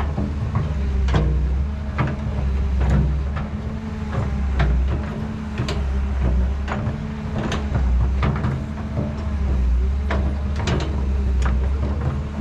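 Radio-controlled model excavator working: a low motor hum that swells and eases every second or two, with irregular clicks and knocks from its moving parts.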